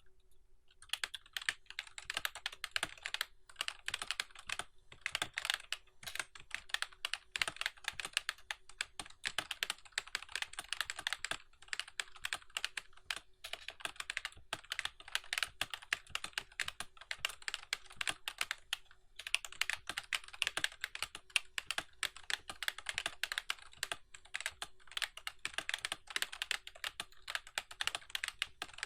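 Rapid continuous typing on a RAKK MUA semi-mechanical keyboard, a dense run of key clicks with a few short pauses, starting about a second in. A faint steady hum runs underneath.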